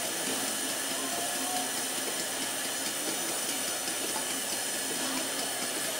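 A standing LNER A3 Pacific steam locomotive, Flying Scotsman, gives off a steady hiss of escaping steam.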